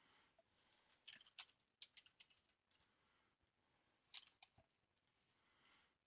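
Faint clicks and taps, like keys being pressed: a quick run of them about a second in and a few more around four seconds in.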